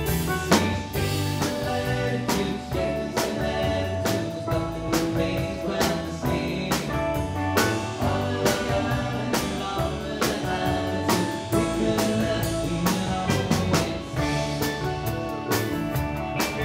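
Four-piece band playing: drum kit keeping a steady beat under electric guitar and steel pans.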